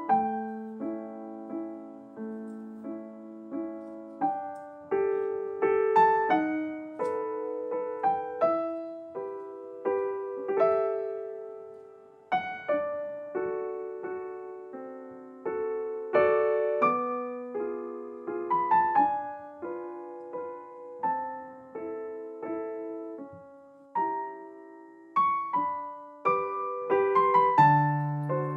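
Background piano music: a slow melody of single notes and chords, each note struck and then fading away.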